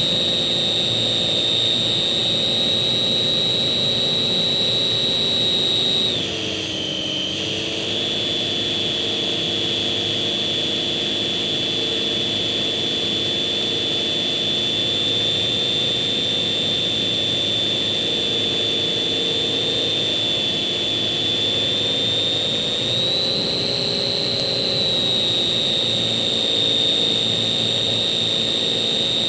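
Electric motor and propeller of a Slow Stick RC park-flyer plane in flight, a steady high whine. The whine drops in pitch and level about six seconds in as the throttle eases off, comes back up about two seconds later, and rises briefly again near the end.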